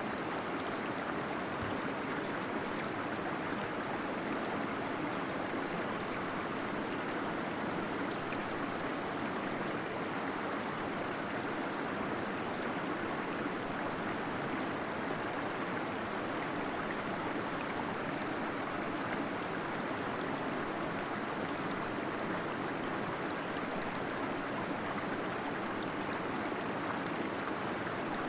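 Small waterfall splashing and gurgling steadily into a pool inside a cave, an even rushing wash of water noise without breaks.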